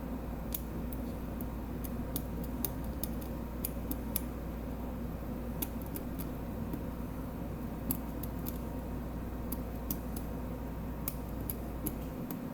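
Small irregular metallic clicks of a lock pick working the pins of a Medeco biaxial lock cylinder, the pins being lifted and turned one by one while the sidebar has not yet dropped. A steady low hum runs underneath and stops near the end.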